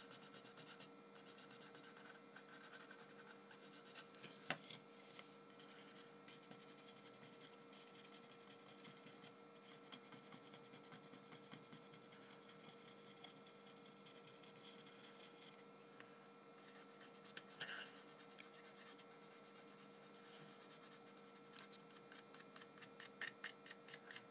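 Faint scratching of a fibreglass pen scrubbing the oxidised edge-connector fingers of a circuit board, with a few slightly louder scrapes, over a faint steady hum.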